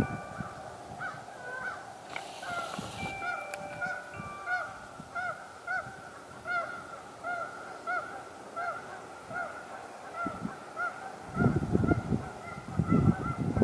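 A flock of geese honking, many short calls repeating and overlapping. Near the end, a few seconds of low buffeting noise are the loudest sound.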